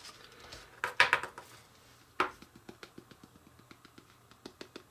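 Plastic lid of a toy baking set being handled on a tabletop while flour is worked into it: a quick cluster of sharp clicks and knocks about a second in, a single knock about two seconds in, then a run of faint light ticks and taps.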